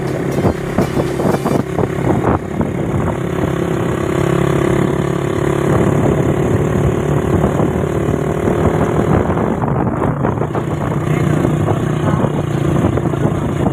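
A motor vehicle engine running steadily on the road, its tone shifting a little about two-thirds of the way through.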